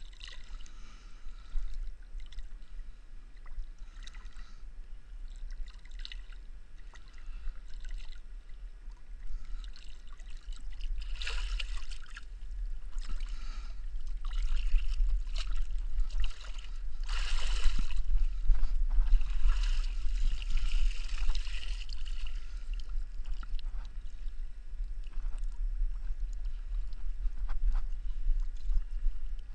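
Lake water splashing and dripping in short bursts as a climber hauls up out of the water onto steel rungs, over a steady low rumble.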